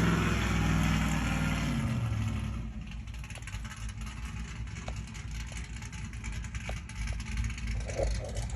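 A car engine with its revs falling over the first two seconds or so, then settling into a low, uneven idle.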